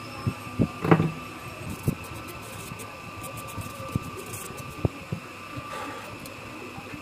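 Steady hum of running workbench equipment with a faint constant whine, and scattered light clicks and taps from tools working on a phone motherboard, the loudest about a second in.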